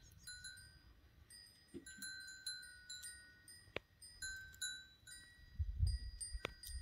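Light, bell-like chiming: clear notes at a few fixed pitches ring in an irregular, tinkling pattern. A low rumble swells near the end, and there are two sharp ticks.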